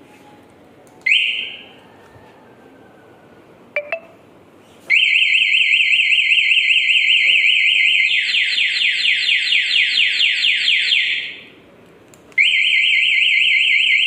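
Motorcycle anti-theft alarm: a short chirp about a second in, two clicks, then from about five seconds a loud electronic siren. It warbles fast, switches about three seconds later to a wider falling sweep, cuts off, and starts again about a second later.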